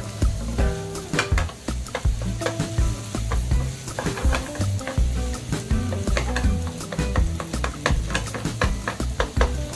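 Wooden spatula stirring and scraping fried rice in a Teflon non-stick frying pan: quick, repeated scrapes and knocks over a steady sizzle. Background music plays underneath.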